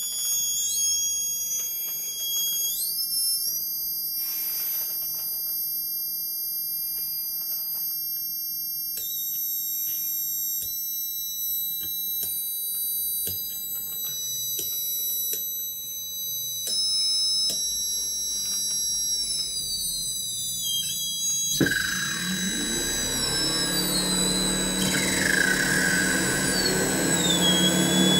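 High-pitched whines from several Bedini self-oscillating fan-motor circuits, their pitches stepping and sliding up and down. About three quarters of the way in there is a knock, after which a lower hum and falling whistles join.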